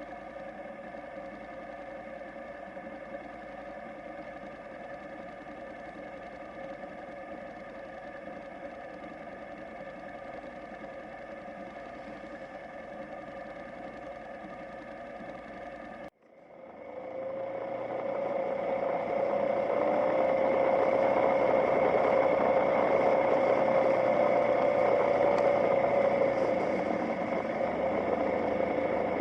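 Motorcycle engine running at a steady pitch, a continuous mechanical drone. About halfway through the sound cuts off abruptly and resumes louder, building over a couple of seconds to a stronger, buzzier drone.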